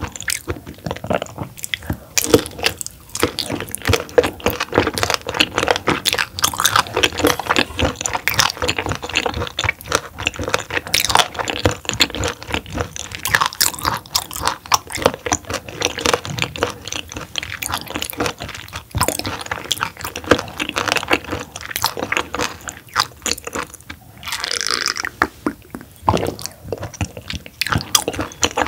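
Close-miked chewing of raw roughscale sole (flatfish) sashimi: a dense, irregular run of quick mouth clicks and smacks.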